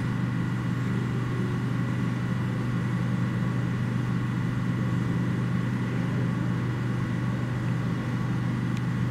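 Steady low mechanical hum with a few fainter, higher steady tones above it.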